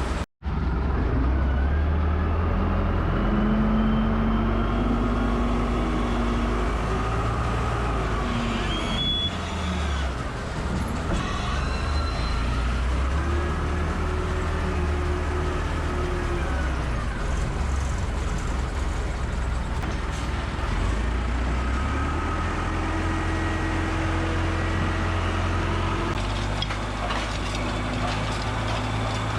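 Heavy machinery engines running steadily, a low hum with pitched tones that rise and fall as the machines work.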